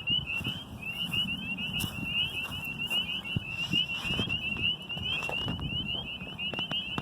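A dense chorus of short, high chirps repeating rapidly without a break, from many unseen calling animals. Wind rumbles on the microphone underneath.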